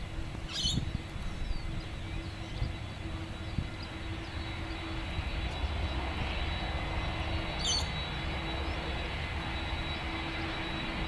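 Jet engines of a Qantas Airbus A330 on its takeoff run, a broad rushing noise that builds steadily louder from about four seconds in.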